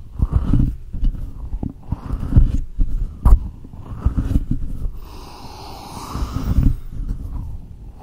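Close-miked hands rubbing, squeezing and cupping over a microphone, making crisp skin-on-skin rustling and muffled thumps. There is a sharp crack about three seconds in and a longer hissy rub past the middle.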